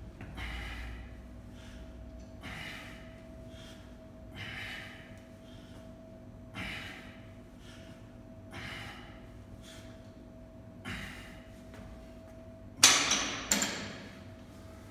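A man breathes out hard about every two seconds through a set of barbell overhead presses. Near the end the loaded barbell clanks loudly into the metal squat rack twice in quick succession as it is racked. A faint steady hum runs underneath.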